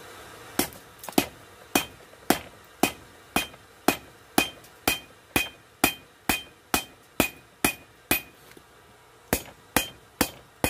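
Blacksmith's hammer striking on the anvil in a steady rhythm of about two blows a second, each with a short metallic ring. The blows stop for about a second near the end, then start again.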